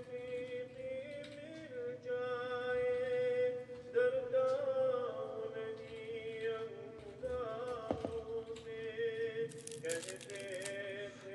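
Background music: a sung melody with long held notes that glide between pitches.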